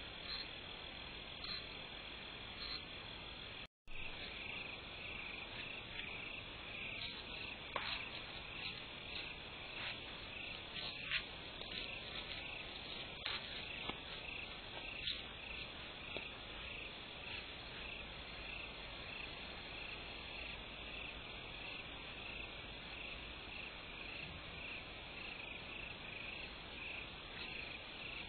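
Night insects chirping in a steady, evenly pulsing chorus, cut off for an instant about four seconds in, with a few faint clicks.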